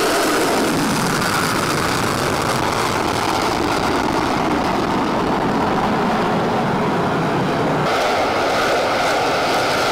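Steady roar of jet aircraft engine noise, changing abruptly about eight seconds in.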